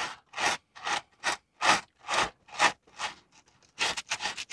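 Small piece of sandpaper rubbed by hand on a plastic cab floor in short back-and-forth scratchy strokes, about two a second, with a brief pause about three seconds in. The plastic around a crack is being roughed up to key it for a repair.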